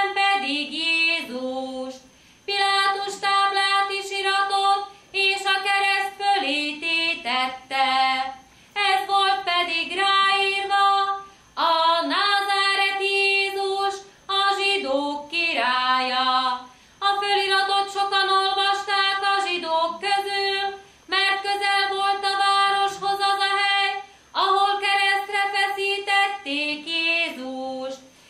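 A woman singing solo and unaccompanied, a slow Hungarian Passion hymn sung in short phrases of long held notes with a few quick runs, with brief pauses between phrases.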